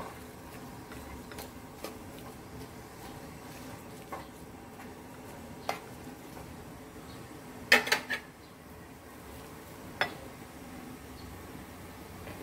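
Metal tongs clinking against an aluminium wok as pumpkin shoots and leaves are turned in it: scattered single clicks, with a quick cluster of three a little past halfway the loudest.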